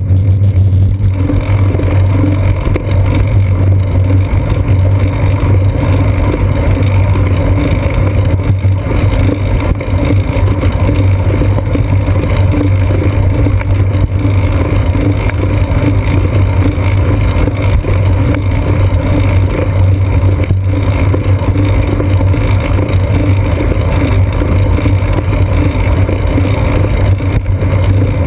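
Loud, steady low rumble of wind and road vibration picked up by a seat-post-mounted GoPro Hero 2 in its housing on a moving bicycle.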